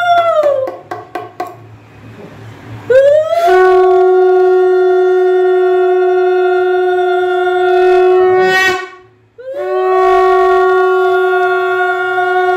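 Conch shell (shankha) blown in long, steady, horn-like blasts for the puja. One blast ends with a falling pitch just after the start, and a few short clicks follow. After a pause, a long blast of about five seconds swoops up in pitch as it starts, breaks off briefly, and a new blast begins.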